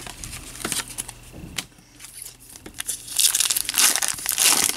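Trading card pack wrapper crinkling and tearing as it is pulled open by hand. Scattered crackles at first, then louder, dense crinkling about three seconds in.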